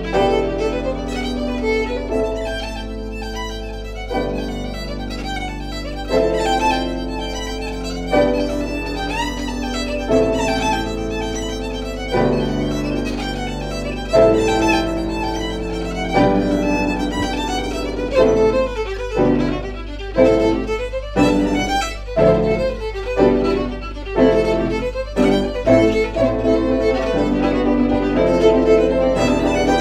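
Irish fiddle playing a reel with piano accompaniment. A steady low microphone drone, a recording fault, runs underneath. About two-thirds through the music turns choppy, with short, separated notes.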